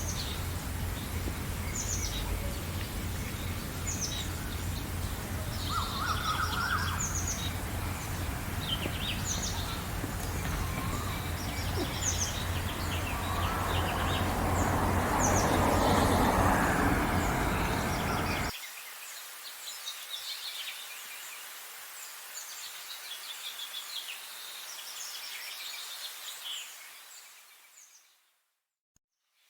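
Many small songbirds chirping and singing in quick, high phrases over a low rumbling background noise. The rumble swells to its loudest about halfway through, then cuts off abruptly, leaving the birds clearer and quieter until they fade out to silence near the end.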